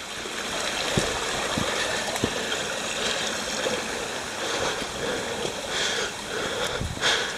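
Steady rush of running water from a small trailside stream, with three light knocks in the first few seconds from footsteps on rock.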